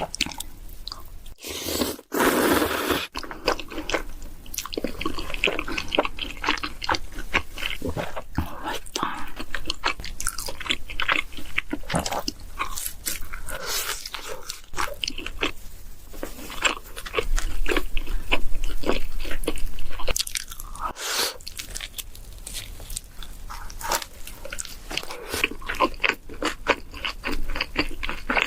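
Close-up eating sounds: repeated crunchy bites and wet chewing of pizza and pasta, with steady small clicks and smacks.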